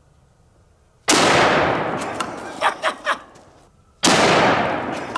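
CZ 550 bolt-action rifle in .458 Lott firing. The loud report comes about a second in and again about three seconds later, each trailing off in a long echo.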